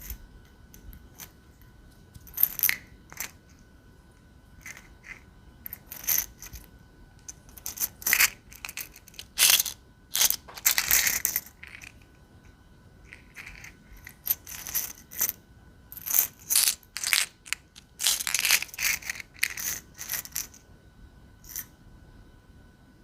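Irregular, crisp clicks, taps and crackles from a small object being handled, coming in clusters with short pauses: an ASMR trigger sound.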